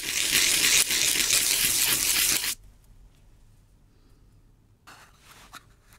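Stainless steel screw head being rubbed back and forth on a sheet of sandpaper, a steady rasping scratch that grinds down the head so it can sit flush. The scraping stops about two and a half seconds in, and a faint brief rustle follows near the end.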